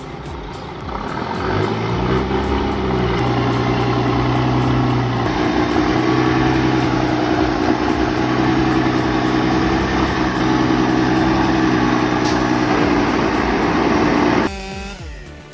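Heavy vehicle engine running hard: it revs up about two seconds in, then holds a steady, loud pitch, and cuts off suddenly near the end.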